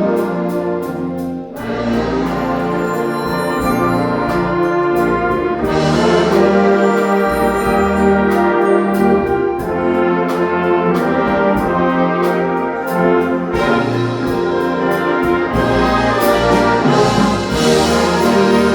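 Community concert band playing, with the brass section to the fore in sustained chords over regular percussion strokes. A brief break comes about a second and a half in.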